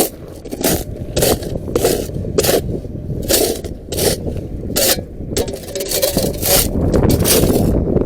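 A regular series of gritty scrapes and crunches on dry dirt and gravel, one roughly every half second, over a steady low rumble of wind on the microphone.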